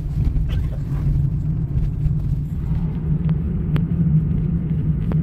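Steady low rumble of a Suzuki car driving, engine and road noise heard from inside the cabin, with a few light clicks in the second half.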